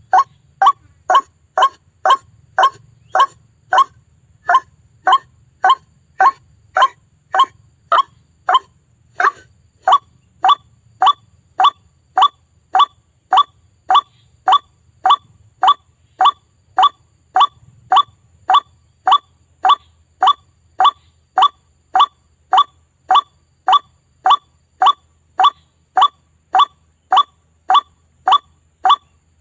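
White-breasted waterhen (ruak-ruak) call, a short note repeated in a steady, even rhythm about twice a second, played as a lure call to attract the birds.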